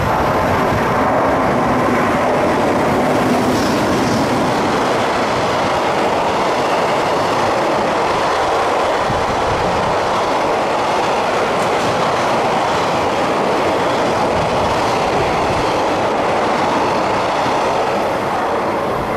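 A container freight train hauled by an EH200 electric locomotive passing at speed: a steady, loud rumble of steel wheels on rail with the clickety-clack of the wagons running over the rail joints, until the last wagon clears near the end.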